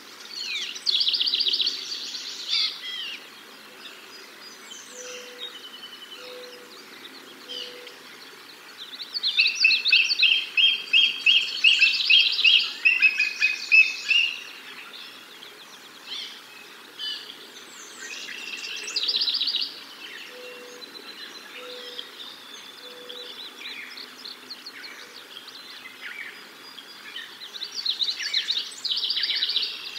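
Birds calling: repeated bursts of fast, high chirping trills, the longest and loudest about a third of the way in, with shorter bursts at the start, past the middle and near the end. A faint, low call of three short notes comes twice.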